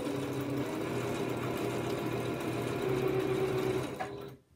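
Electric sewing machine running steadily, stitching a seam through pieced quilt fabric, then stopping abruptly about four seconds in.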